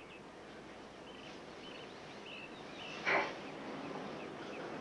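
Faint outdoor ambience with a steady hiss and small high bird chirps here and there. A brief noisy sound about three seconds in.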